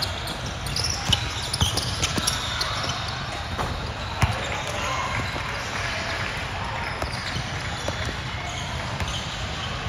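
A basketball bouncing on an indoor court during play: a series of sharp thuds, the strongest about four seconds in, over background voices of players and spectators.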